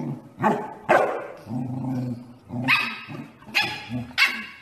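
Corgis barking at play, an adult and a puppy: about five sharp barks, with low growling between them.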